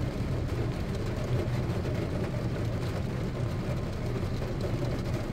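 Steady low rumble of an idling car, heard from inside the cabin, with a fainter hiss of heavy rain.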